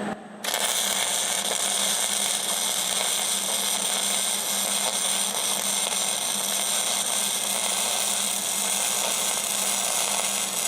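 MIG welder arc running a continuous bead along a crack in a steel wheel rim: a steady hiss that starts about half a second in and goes on without a break.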